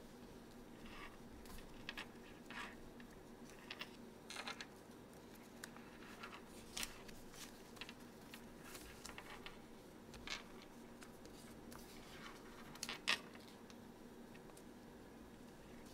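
Origami paper being folded and creased by hand on a tabletop: scattered soft rustles and crisp crease clicks, with one sharper crackle near the end, over a faint steady hum.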